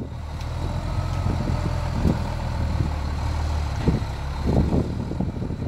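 M936A2 military wrecker's diesel engine pulling under load as the 6x6 truck climbs loading ramps onto a flatbed trailer, a steady low drone with short knocks about two and four seconds in.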